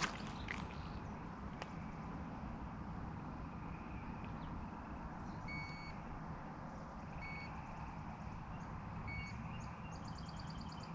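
Low steady outdoor background noise with three short electronic beeps about two seconds apart in the second half, then a fast high-pitched trill near the end.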